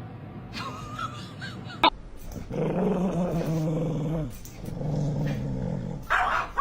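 A pet growling low: two long growls, the first about a second and a half long, the second a little over a second, with a short sharp sound near the end.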